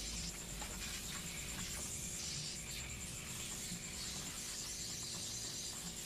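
Leak-test pressure hissing out of a refrigerator's sealed system through the charging hose as it is vented before vacuuming, with a few faint clicks.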